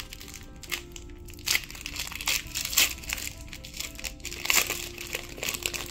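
Foil booster-pack wrapper crinkling in repeated sharp crackles as it is torn and peeled open by hand, over faint background music.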